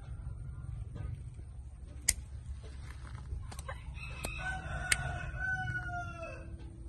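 Thai ornamental bantam rooster crowing once: a long call starting about four seconds in that drops in pitch at the end. Two sharp clicks stand out, one near two seconds in and one during the crow, over a steady low rumble.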